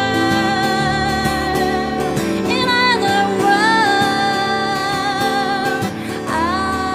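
Music: a singer holding long notes with vibrato, sliding up into each new note, over keyboard accompaniment.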